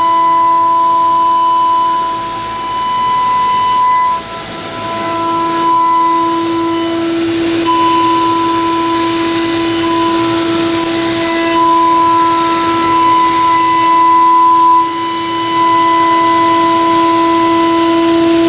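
High-speed CNC milling spindle cutting aluminium: a steady high-pitched whine over a constant hiss, with the level dipping briefly a few times.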